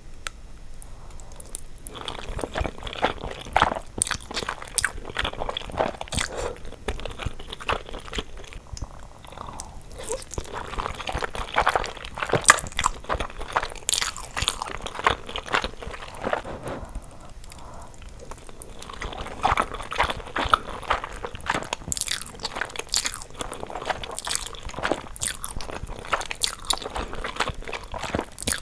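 Close-miked eating of carbonara fire noodles and kielbasa sausage: steady chewing and biting, full of many small wet clicks and crunches.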